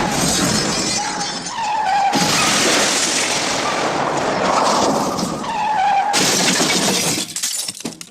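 The MGM 'elephant smash' stock crash sound effect: loud crashing and shattering that starts over abruptly twice, then dies away and cuts off near the end.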